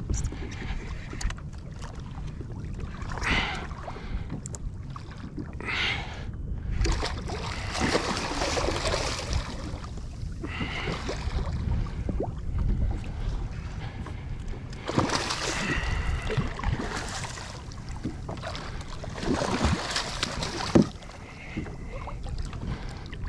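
Water sloshing and splashing around a fishing kayak at sea, in several swelling washes, over a steady rumble of wind on the microphone. A single sharp knock comes near the end.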